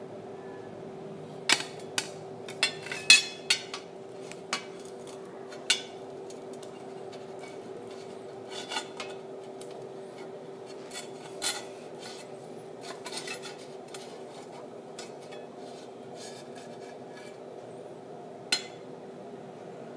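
Sharp clinks and knocks of glass and metal being handled, a quick run of them a couple of seconds in, then a few scattered ones and a last clink near the end, over a steady low hum.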